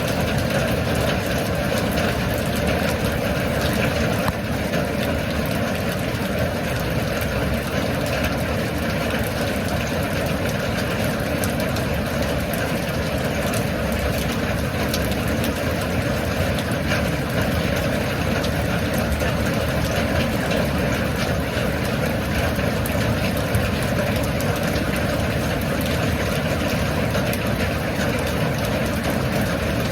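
Steady rain falling: a dense, even hiss with many small drop ticks, unchanging throughout.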